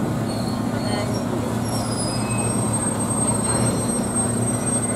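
EMD SW1500 diesel switcher locomotive running steadily as it moves the excursion train: a constant engine drone with rail noise.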